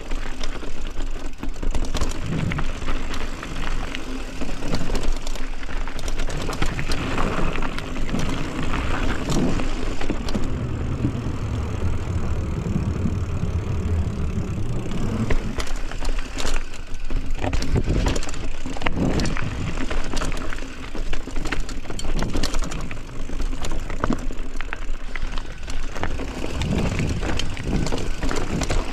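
A bicycle in motion: steady rolling noise with frequent clicks, knocks and rattles from the bike.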